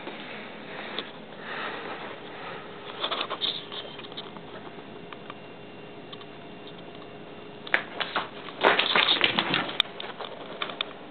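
A house cat hunting a mouse under a stack of magazines on a tile floor: soft paper rustling and scraping as it noses and paws at the pile, then a flurry of loud scrabbling and clattering about eight seconds in as it lunges and dashes off.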